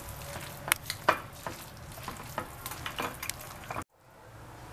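Chopped raw filet mignon, onion, herbs and sauces being stirred together in a glass bowl: a wet, crackling mixing sound with scattered sharp clicks of the utensil against the glass. It cuts off suddenly about four seconds in.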